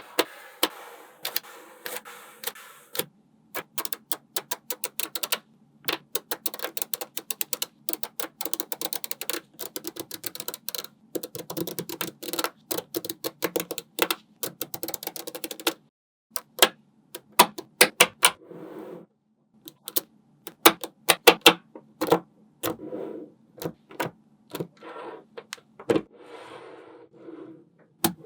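Small magnetic balls clicking and snapping together as they are placed, in fast rattling runs of sharp clicks. Later come fewer clicks, spaced apart.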